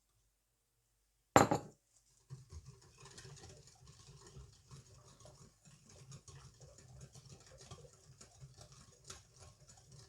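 One sharp knock about a second in, then batter being stirred in a mixing bowl: a utensil scraping and tapping around the bowl in an irregular, continuous rhythm.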